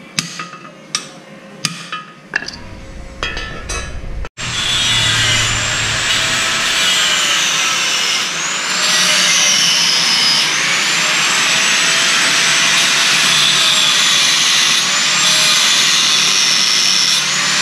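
A few hammer knocks on a steel luggage carrier. About four seconds in, an angle grinder takes over, cutting steel with a steady high whine that dips in pitch and recovers several times as the disc bites.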